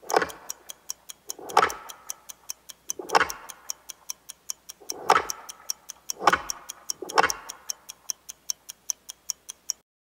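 Intro sound design: a fast clock-like ticking, about four ticks a second, broken by six heavy impact hits, each with a falling low boom. It cuts off suddenly shortly before the end.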